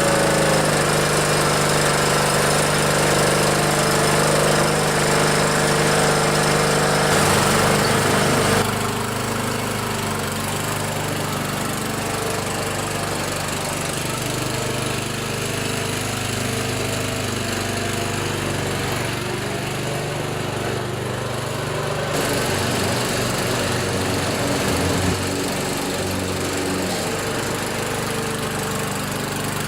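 Older MTD riding lawnmower's single engine running steadily, louder for the first eight seconds or so and then settling to a lower, even speed. It now starts and runs, a sign that the repaired blade-engagement safety switch is engaging.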